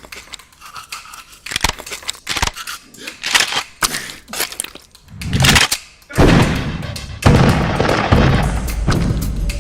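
Cartoon sound effects: a quick run of sharp cracks and impacts, then from about six seconds in a loud, sustained rumbling blast.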